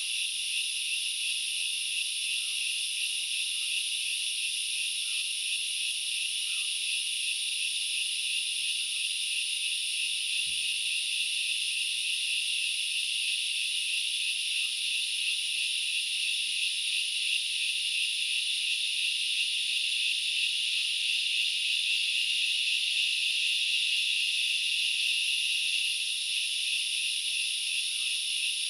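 A dense chorus of forest insects making a continuous, shrill, high-pitched drone. It swells slightly about two-thirds of the way through, then eases back near the end.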